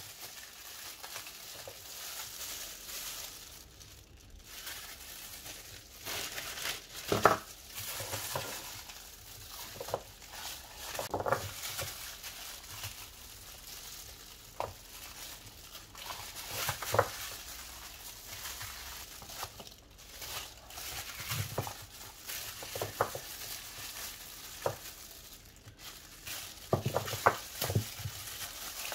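Frozen purée cubes being pushed out of flexible silicone moulds by hands in plastic gloves: a steady crinkling of the gloves and silicone, with irregular sharp knocks as the frozen pieces drop onto a tray.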